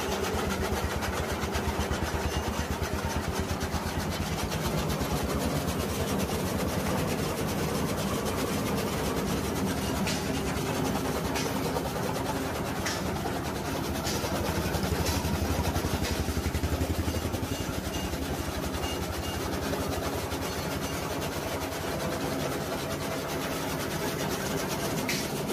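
Two electric chaff cutters running together. Their single-phase motors and belt-driven flywheel blade drums make a steady whirring drone with a fast rattle as rice straw and green grass are fed in and chopped. A few sharp clicks stand out over it.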